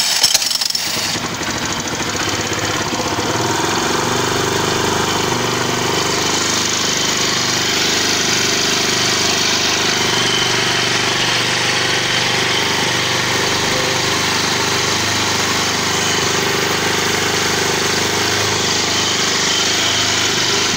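50cc GY6 (139QMB) single-cylinder four-stroke scooter engine just started and running with its CVT case open, the variator and belt spinning exposed. It is a little louder in the first second, then settles into a steady run.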